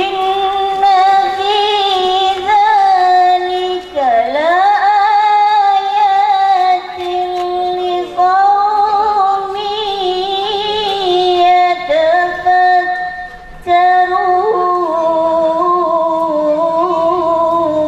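A woman's voice reciting Quran verses in melodic tilawah style into a microphone, amplified: long held, ornamented notes, with breaks for breath about four seconds in and near fourteen seconds.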